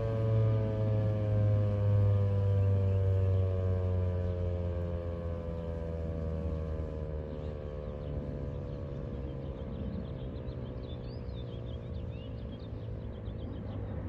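ASC T-128 outdoor warning siren winding down at the end of its alert test: a chord of tones slides slowly lower in pitch and fades, over a steady low hum.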